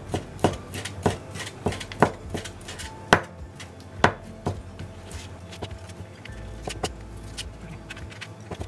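Kitchen knife chopping peeled shrimp on a plastic cutting board, cutting them by hand into a coarse mince. Irregular knocks come about one to two a second, sharper in the first half and lighter after about four and a half seconds.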